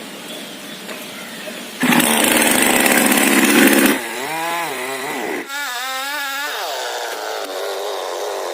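A two-stroke chainsaw cutting a coconut tree trunk. It starts with a loud burst about two seconds in, then its engine revs up and down before settling into a steady run.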